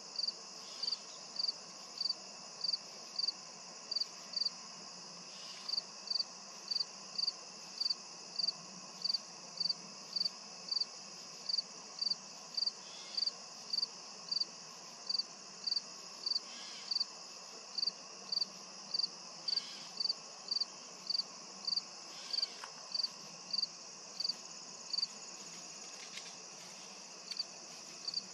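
Insect chirping steadily and evenly, nearly two short high chirps a second, over a continuous high insect drone.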